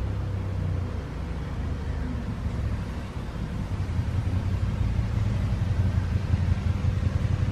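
Uneven low background rumble with no distinct events, growing somewhat stronger over the last few seconds.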